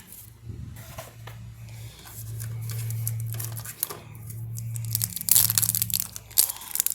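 Wrapper of a 2022-23 Upper Deck MVP hockey card pack being torn open and crinkled. The crinkling is sparse at first and gets loud and dense over the last two seconds, over a steady low hum.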